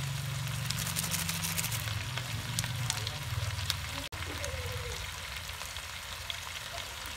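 Chicken feet frying in a stainless steel pan: a steady sizzle with fine crackling pops, busiest in the first couple of seconds, over a low steady hum. The sound breaks off for an instant about four seconds in.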